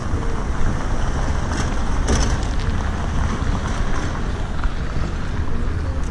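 Wind buffeting the microphone in a steady low rumble, over a faint background of street noise.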